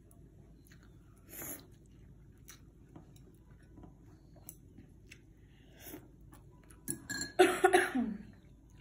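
Slurping and chewing of instant ramen noodles, with small clicks of chopsticks against the bowl. A short slurp comes about a second and a half in. Near the end there is a loud, short burst of her voice with a falling pitch, a cough-like outburst as she reacts to the spicy noodles.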